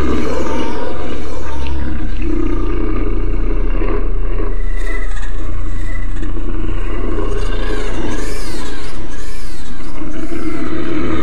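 Dark horror soundtrack: a loud, steady low drone with growling roars layered over it. Sweeping rising-and-falling tones repeat through the second half.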